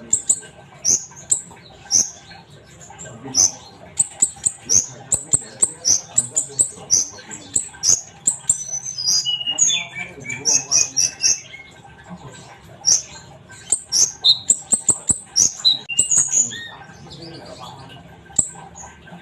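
A kolibri ninja sunbird singing busily: a fast run of short, sharp, very high chirps, with a few lower twittering trills mixed in around the middle.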